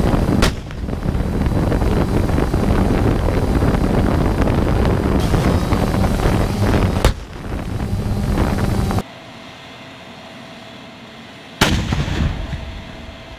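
M1A2 Abrams tank's 120 mm main gun firing three times, each a sharp report followed by a rolling echo. The last shot comes after a quieter stretch near the end. A steady rumble of vehicle and wind noise runs under the first two shots and drops away about two-thirds of the way through.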